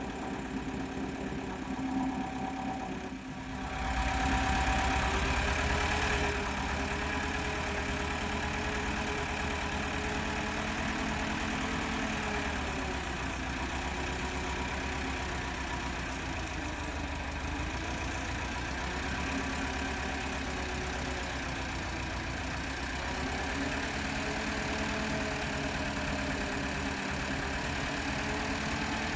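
A vehicle engine running steadily at idle, its pitch wavering slightly. It gets louder about four seconds in and then holds steady.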